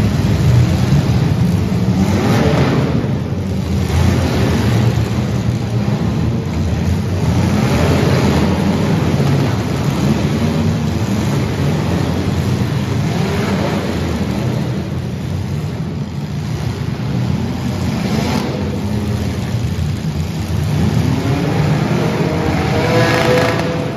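Several welded compact demolition-derby cars with their engines running and revving hard. The revs climb again and again over a constant low rumble.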